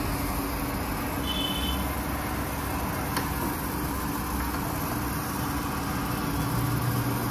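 Crankshaft grinding machine running with a steady hum, its grinding wheel taking a rough cut on a rotating tractor crankshaft journal.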